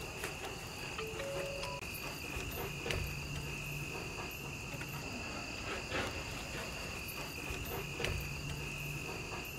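Crickets chirping steadily, with a few faint knocks about three, six and eight seconds in.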